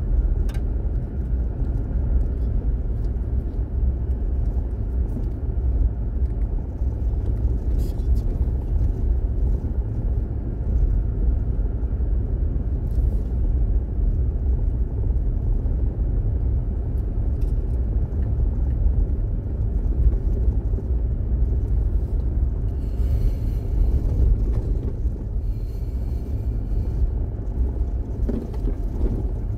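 A car rolling slowly along a gravel road, heard from inside the cabin: a steady low rumble of engine and tyres on the dirt surface, with scattered faint clicks.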